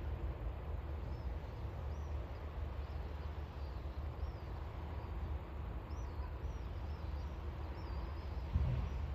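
Small birds chirping at intervals over a steady low rumble, with a brief low thump near the end.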